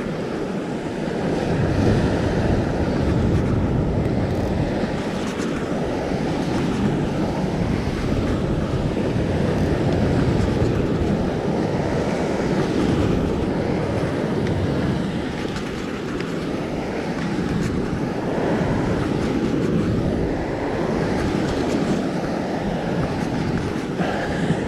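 Wind buffeting the microphone over surf washing against a rock ledge: a steady rushing noise that swells and eases a little.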